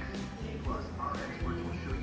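Background music with guitar, playing under a pause in the narration.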